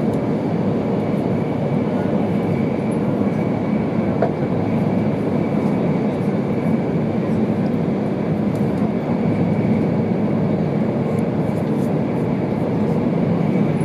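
Steady running noise inside the passenger cabin of an E2 Series Shinkansen travelling at speed: a dense, even rumble of wheels on rail and air rush, with a faint steady high tone above it.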